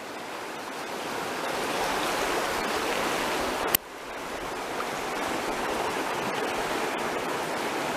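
Fast, swollen river rushing steadily past the bank. About four seconds in there is a single sharp click, after which the sound drops for a moment and builds up again.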